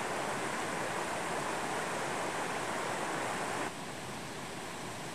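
Steady rushing of a mountain stream. It drops suddenly to a lower level about three-quarters of the way through.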